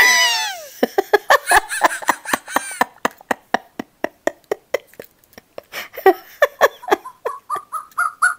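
Wowee Fingerlings baby monkey toy's electronic voice reacting to having its head cradled: a falling squeal at the start, then rapid giggling chatter, ending in a rising run of short notes.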